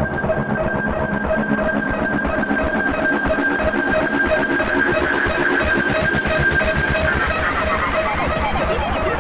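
Instrumental music: guitar over two held high tones and a fast pulsing low end. About three-quarters of the way in, a swirl of tones gliding up and down comes in.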